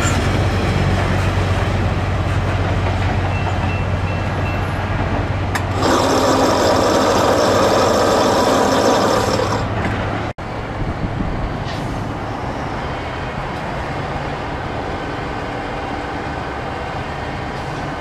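Railroad train running by with a steady low rumble. About six seconds in, a loud chord of several steady tones sounds for about three and a half seconds. Then the sound cuts off abruptly and gives way to a quieter, steady rumble.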